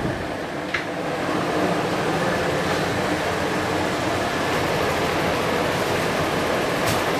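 Steady fan hiss of a wall-mounted split air conditioner running inside a closed tram car, with a faint click about a second in.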